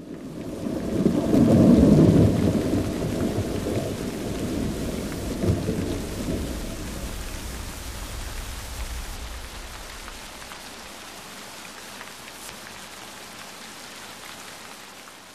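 A long roll of thunder, loudest about two seconds in and dying away over the next several seconds, over steady rain that carries on alone afterwards.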